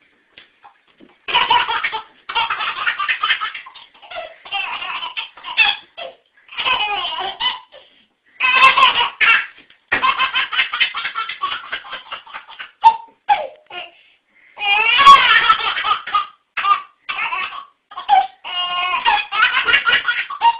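A baby laughing hard: fit after fit of belly laughs in quick pulses, with short breaks for breath between them. The loudest fit comes about three quarters of the way through.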